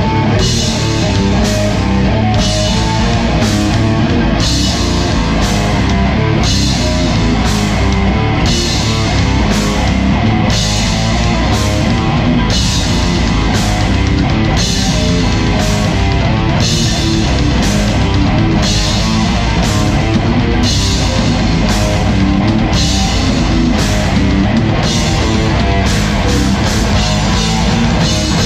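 Live heavy metal band playing at full volume: distorted electric guitars, bass guitar and drum kit, with cymbals struck on a steady beat.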